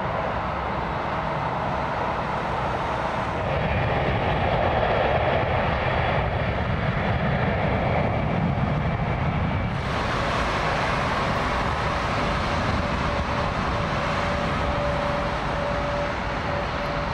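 Jet engines of taxiing airliners running at low thrust: a steady rumble and hiss with a faint steady tone. The sound changes abruptly about three and a half seconds in and again about ten seconds in; in the last part a Lufthansa Airbus A320neo is taxiing, with a steady hum over the noise.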